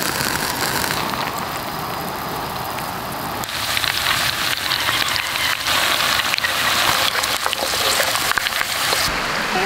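Big beef ribs deep-frying in hot oil: a steady sizzle full of small crackles, softer for the first few seconds and louder and brighter from about a third of the way in. Music comes in just before the end.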